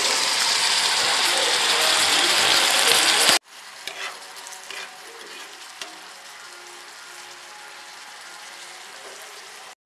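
A steady, loud hiss that cuts off abruptly about three seconds in. After it come a few faint clicks of a spoon in the pan of tilapia curry.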